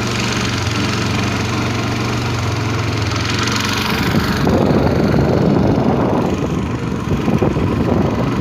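A boat engine running steadily. About four seconds in, its even note gives way to a rougher, choppy rushing noise.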